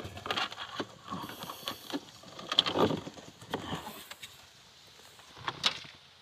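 Hands working a wire in under the plastic dashboard and pillar trim of a car: irregular rustling, scraping and light knocks on the hard plastic, loudest about three seconds in, with a sharp click near the end.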